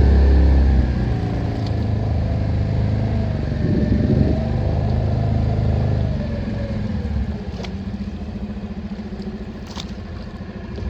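Small boat's motor running under way, throttled back about a second in and again around seven seconds, settling to a lower, steadier drone.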